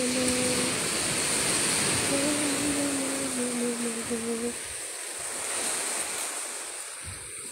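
Surf washing up on a beach, a steady rush of small waves. Over it, someone hums a held low note right at the start, and a longer one from about two seconds in to about four and a half, sinking slightly at the end.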